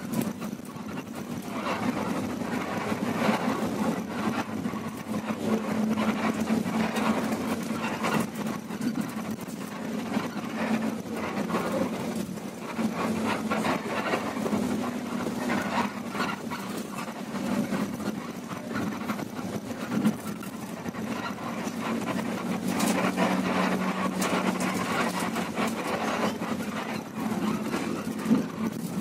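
Inside a moving coach bus: the engine's steady drone and road noise, with frequent small rattles and clicks from the cabin fittings.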